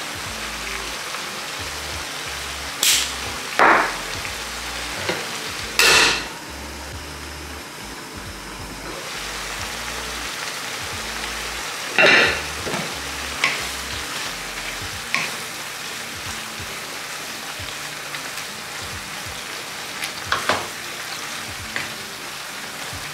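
Sliced pork, asparagus and bamboo shoots sizzling steadily in a frying pan on a gas stove. The sizzle is broken by about five loud, sharp knocks.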